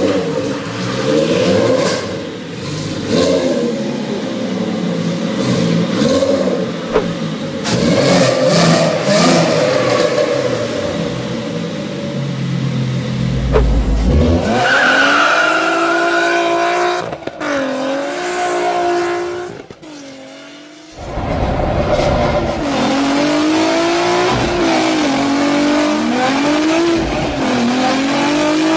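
5.6-litre W12 engine swapped into a VW Lupo, revved hard again and again, its pitch rising and falling. Later, heard from inside the cabin, it accelerates through the gears, the pitch climbing and dropping every couple of seconds at each upshift.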